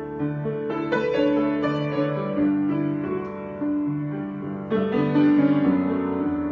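Solo piano improvisation: slow, sustained chords ringing on, with new chords struck about a second in and again near five seconds.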